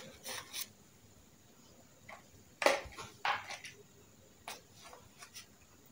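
A handful of short rustles and light knocks from things being handled and set into a packed suitcase, the loudest about two and a half seconds in.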